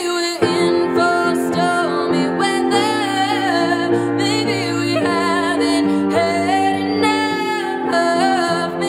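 A grand piano playing chords while a woman sings long held notes with vibrato.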